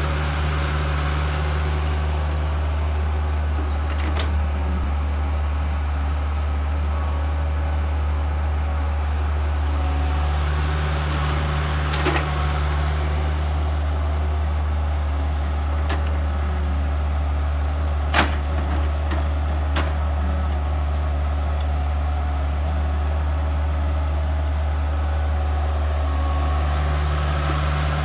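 Hitachi EX30 mini excavator's diesel engine running steadily under load as it digs and dumps soil, its pitch shifting slightly now and then. A few short knocks, the loudest about two thirds of the way in.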